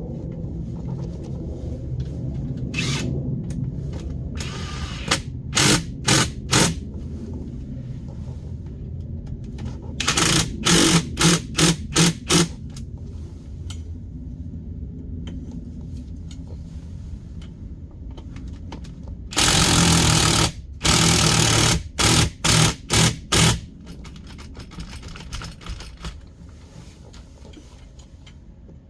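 A small electric motor, as of a handheld power tool, run in short bursts: three groups of quick pulses, the last starting with two longer runs, over a steady low hum.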